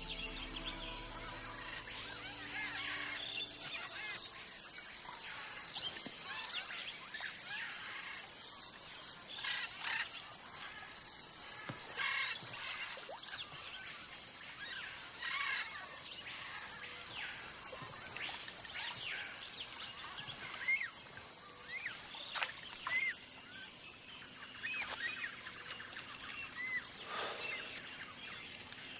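Rainforest ambience: many birds calling and chirping at irregular intervals over a steady background hiss, with a thin high steady tone in the first several seconds. Music fades out in the first couple of seconds.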